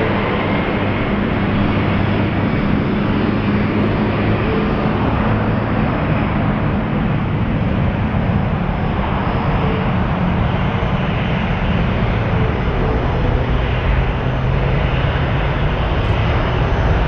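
Airbus A330-300's Pratt & Whitney turbofan engines running with a steady noise and a low hum, at an even level throughout.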